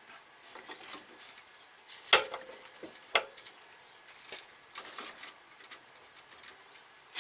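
Small metallic clicks and taps from hands working screws and brackets on a car's metal radiator core support, with a sharper knock about two seconds in that rings briefly.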